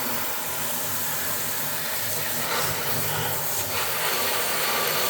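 Water running steadily from a tap and splashing over a printer being washed out, a continuous hiss of spray.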